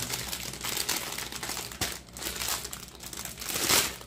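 Thin clear plastic bag crinkling as hands handle and open it, with a louder rustle near the end.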